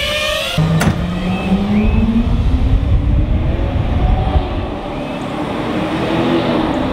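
FPV quadcopter's motors and propellers whining, the pitch climbing slowly as the drone flies, over a low wind rumble.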